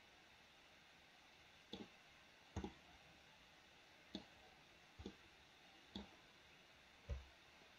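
Faint clicks of a computer mouse, about six spread irregularly, some of them double clicks.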